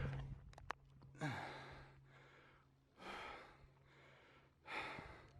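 A hiker breathing hard on a steep uphill climb: three breaths about a second and a half apart.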